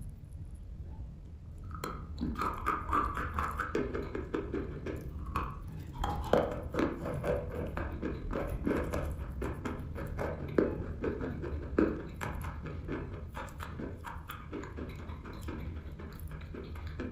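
Close-miked crunching of dry chalk being bitten and chewed: a dense run of short, crisp crunches that picks up about two seconds in.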